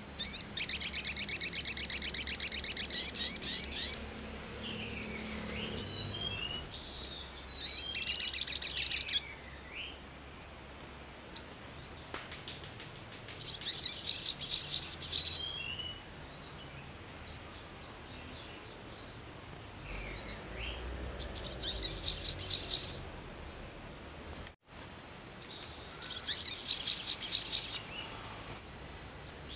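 Male olive-backed sunbird singing: five bursts of very fast, high trilling, each one to three seconds long, with short thin chirps between them.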